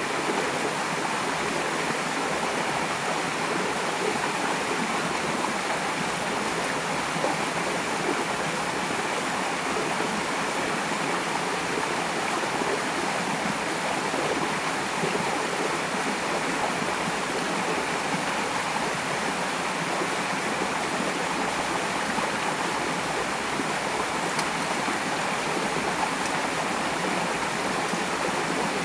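River water flowing over rocks, a steady unbroken rush.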